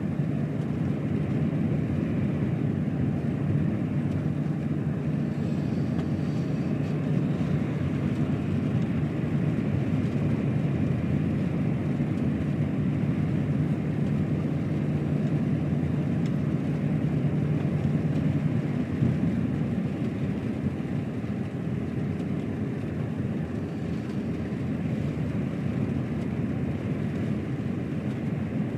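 Truck driving on a wet motorway: a steady drone of engine and tyre noise, easing off a little about two-thirds of the way through.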